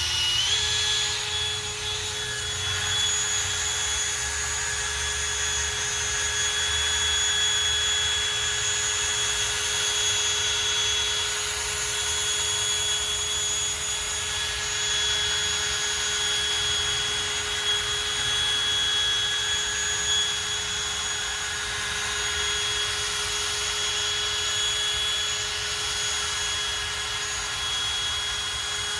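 Electric drill running steadily at low speed, with an even whine, driving a 1000-grit 3M headlight-restoration disc over a plastic headlight lens.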